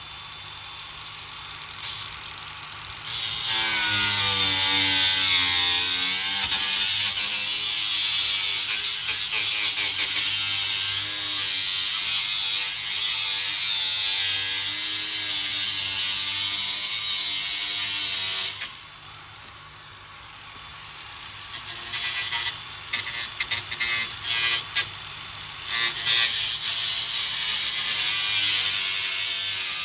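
Handheld power tool running under load for about fifteen seconds, its pitch wavering. It then drops to a quieter hum, gives a string of short trigger bursts, and runs steadily again near the end.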